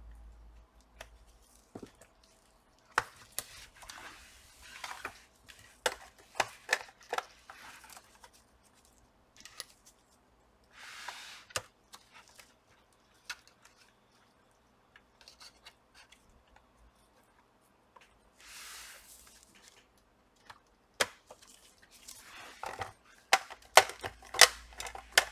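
Plastic bottom cover of a Dell Inspiron 5570 laptop being pried off with an opening tool: its clips click and snap loose one after another, with short scraping sounds between, and a quick run of sharp clicks near the end.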